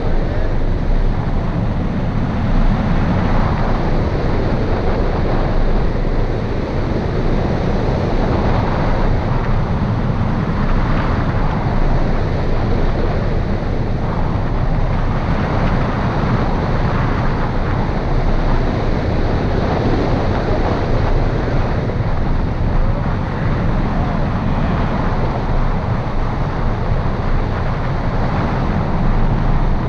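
Steady rush of wind over the microphone of a camera mounted on a hang glider in flight, a constant roar that is strongest in the low range.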